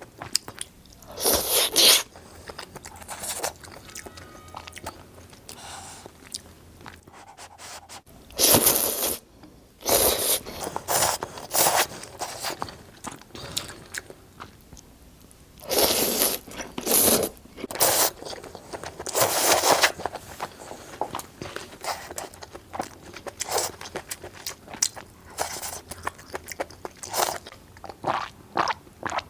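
A person eating close to the microphone: chewing and crunching throughout, with about five louder bursts of a second or less scattered among them.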